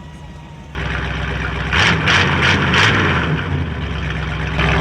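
Buick 455 cu in (7.5 L) V8 exhaust idling with a lumpy beat, jumping suddenly louder under a second in, then about four quick throttle blips in a row around two seconds in before settling back to a steady idle.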